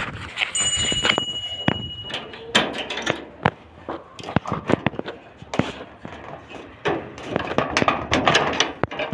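A short bell-like chime from an on-screen subscribe-button sound effect about half a second in. After it come irregular clicks and rustling of mixed grain feed (wheat, maize and sunflower seeds) being handled.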